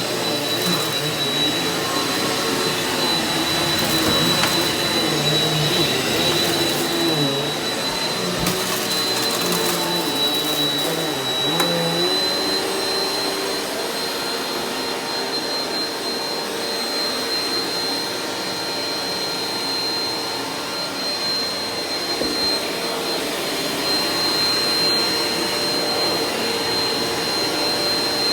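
Eureka NEU180B Power Speed upright vacuum running steadily on carpet, with a constant high motor whine over the rush of air. Lower tones in the airflow waver up and down for the first dozen seconds, then settle.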